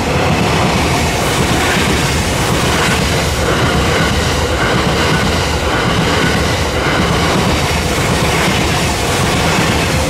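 The TRAIN SUITE Shiki-shima cruise train passing a level crossing close by at speed, a loud steady rumble of wheels on rails. The level-crossing alarm bell rings under it.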